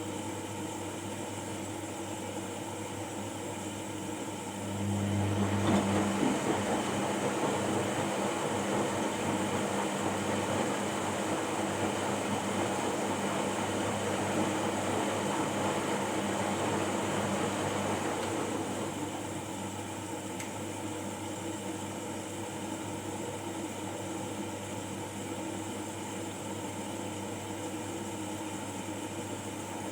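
Washing machine running with a steady hum. About five seconds in, a louder rushing noise starts with a brief strong hum and continues for roughly fourteen seconds before fading back to the hum.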